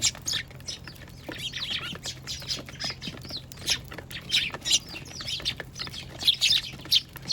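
A group of Eurasian tree sparrows chirping, with many short, high calls overlapping in quick succession.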